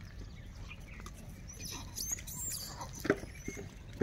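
Short animal calls over a low steady rumble, with a sharp knock about three seconds in.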